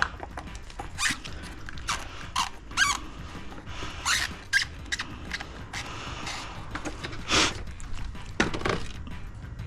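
Irregular short squeaks and scrapes, about nine in all, from a drain inspection camera's push rod rubbing as it is fed down the sewer pipe.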